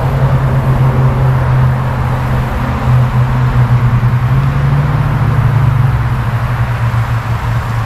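Steady low hum of motor-vehicle traffic, with a hiss of road noise over it; its pitch rises slightly about halfway through and settles back.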